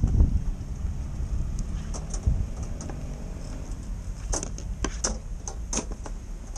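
Small motor scooter rolling slowly to a stop: a low rumble that fades in the first second, then a faint steady hum, with a string of sharp clicks from about four seconds in.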